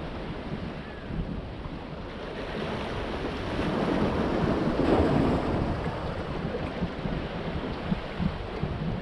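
Sea waves washing in among the large stones of a rock breakwater. One surge builds to a peak about halfway through and then ebbs, over a low, gusting rumble of wind on the microphone.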